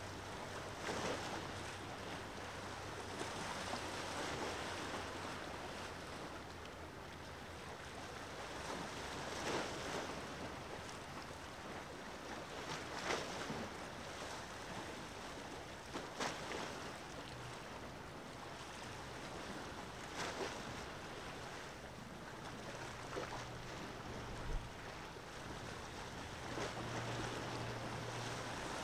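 Sea waves washing against the shore, heard as a steady hiss with a brief louder splash every few seconds, with wind on the microphone. A faint low hum runs underneath and grows stronger near the end.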